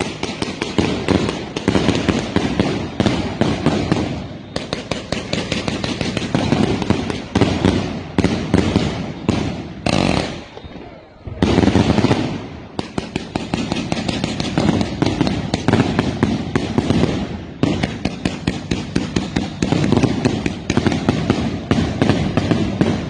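A fireworks cake firing a long, rapid barrage of shots and bangs, several a second, broken by a few short pauses between volleys: one about four seconds in, a longer one around ten seconds, and another near seventeen seconds.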